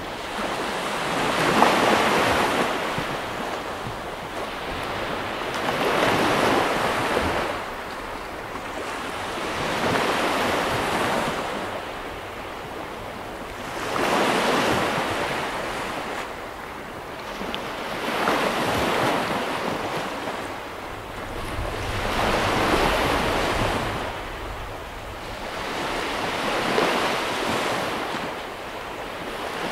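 Small Baltic Sea waves breaking and washing up a sandy beach: a rushing swell of surf about every four seconds, each rising and then ebbing away.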